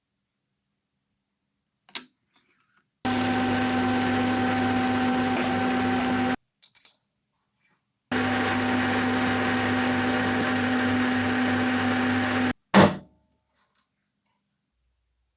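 An electric power tool's motor running steadily with a constant hum, in two stretches of a few seconds that start and stop abruptly, with a sharp click or knock before the first and just after the second.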